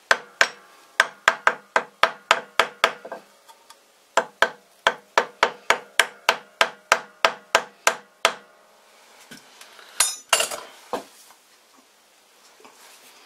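A small wooden-handled hammer tapping on a steel three-jaw lathe chuck, about three light ringing blows a second in two runs with a brief pause between. The taps are driving the chuck onto a backing-plate register that is still a fraction too tight to seat. A short rough clatter follows near the end.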